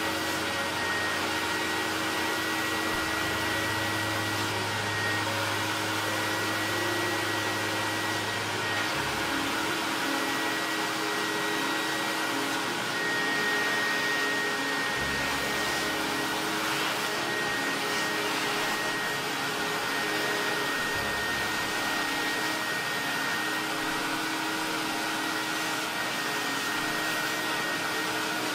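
Carpet extractor's vacuum motor running steadily with a high whine as its wand is pulled across car floor carpet, sucking up water and dirt.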